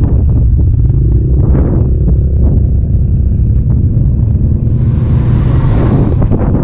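ATV engine running with a heavy, steady low rumble and scattered knocks. A rushing hiss rises for about a second and a half near the end.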